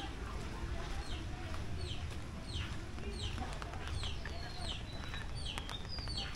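A bird peeping over and over: short, high notes that fall in pitch, about two a second, turning into longer drawn-out peeps near the end.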